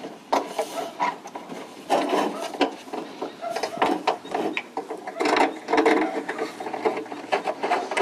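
Irregular scraping, rubbing and clicking of an aluminum rain gutter being handled and worked on at the eave.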